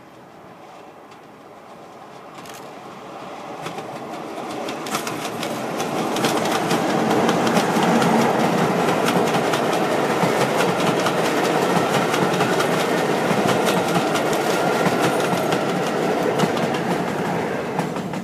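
Diesel-hauled passenger train of Mk1 coaches approaching and passing close by: engine noise builds steadily, then a rapid clatter of wheels over the rail joints as the coaches go past, falling away near the end.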